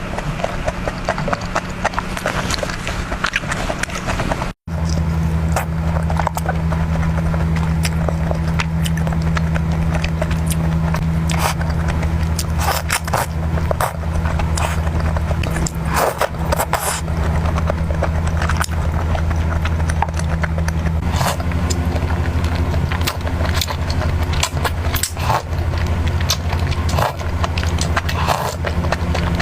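Close-miked eating sounds: chewing and crunching with many short, sharp clicks, over a steady low hum. The sound drops out briefly about four and a half seconds in.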